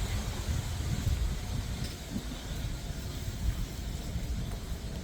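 Street traffic noise: a steady low rumble of vehicles with an even hiss.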